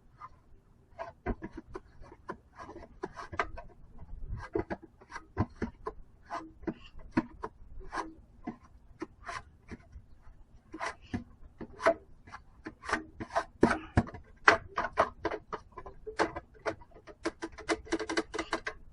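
Scraping and rubbing at a metal outside dryer vent as lint is cleaned off the hood and flap: many short, irregular scratchy strokes and clicks, coming thicker near the end.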